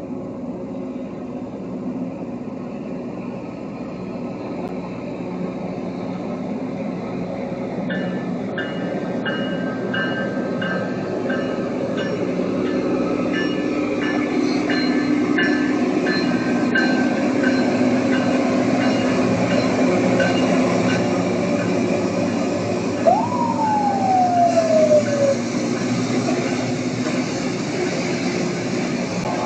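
Rail grinder train passing, its diesel engines running with a steady drone that grows louder toward the middle. It is joined by a run of short repeated ringing tones, and later by one brief whistle-like glide that rises sharply and then falls.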